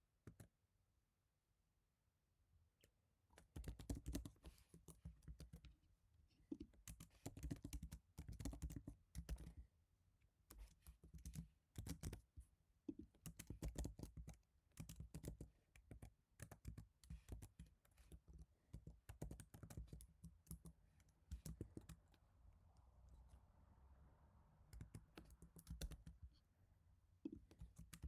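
Typing on an HHKB Type-S keyboard with silenced Topre switches: soft, quick key strokes in runs with short pauses, starting about three seconds in.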